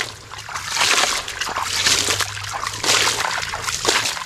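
A hand scraping and scooping wet gravel out of a plastic toy dump truck's bed, with water splashing and trickling in short irregular bursts.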